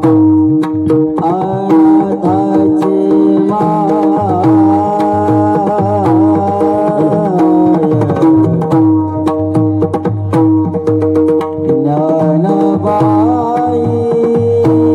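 Marathi devotional abhang: a solo voice singing long, ornamented phrases over a steady held drone, with tabla-style hand-drum strokes keeping a regular rhythm. The voice sings about a second in until about eight seconds, pauses while the drone and drum carry on, and comes back near the end.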